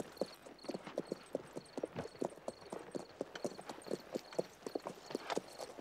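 Hoofbeats of several horses walking at an easy pace, a steady, irregular clip-clop of many overlapping hooves.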